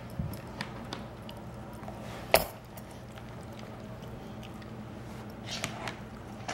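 A dog chewing and tearing at a plush stuffed toy: scattered small clicks and soft chewing noises, with one sharp, loud click about two seconds in, over a faint steady hum.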